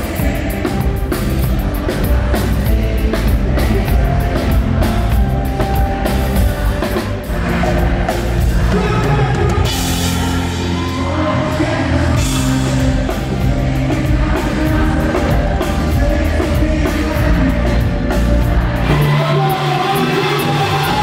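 Live pop-rock band playing loudly on an arena stage: a drum kit strikes hard for the first several seconds, then sustained chords carry on with a singing voice. The deep bass drops out for a moment near the end.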